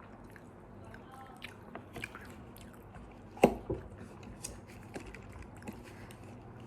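People chewing and biting McDonald's fast food: soft mouth sounds with scattered small clicks and crunches, and one sharper, louder click about three and a half seconds in.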